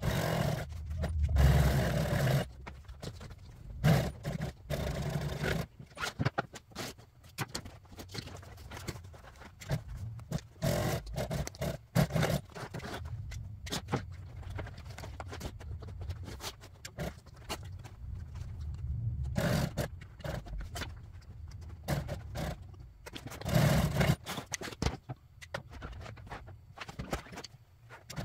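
Industrial sewing machine stitching a vinyl car seat cover back together in short, irregular runs, with the scrape and rustle of the bulky cover being pushed and turned across the machine table.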